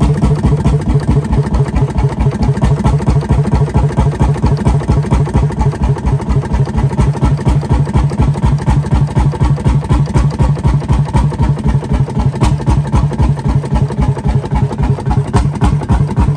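Old Fairbanks Morse stationary engine with large twin flywheels running steadily, with a quick, even beat.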